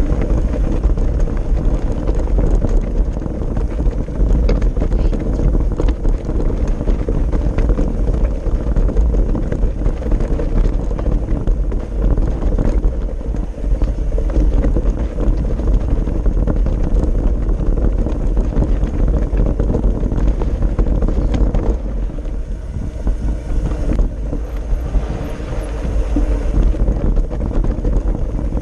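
A mountain bike riding over a rough, stony track: tyres crunching and the bike rattling over loose stones, under heavy wind buffeting on a handlebar-mounted GoPro's microphone. It eases off briefly a little over three-quarters of the way through.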